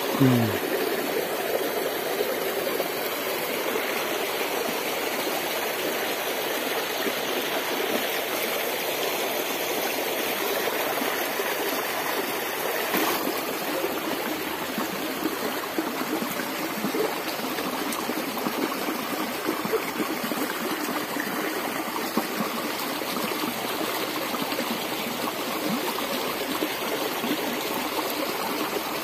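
Small rocky stream running steadily, water spilling around a boulder in a shallow riffle.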